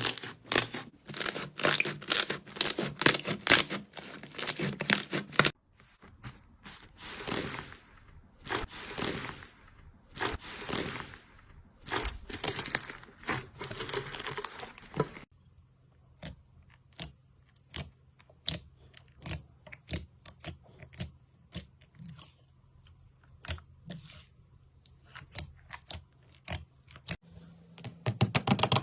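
Slime being squeezed and worked by hand, making a dense crackling and popping. After a cut come slower squishing strokes about once a second, then after another cut sparser pops and clicks.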